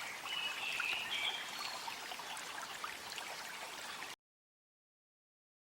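Faint outdoor ambience, an even hiss with a few brief high chirps in the first second or so, cutting off to dead silence about four seconds in.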